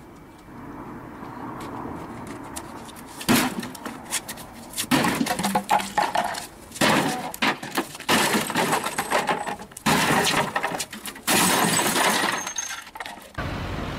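A wooden lectern being smashed apart: a series of about six loud crashes of breaking board and debris, starting a little over three seconds in.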